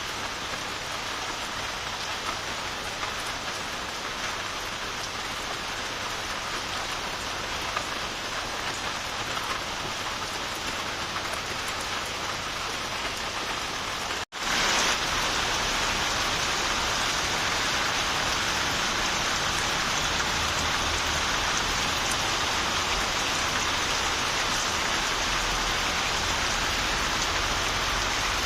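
Steady rain falling. About halfway through, the sound cuts out for an instant and comes back louder.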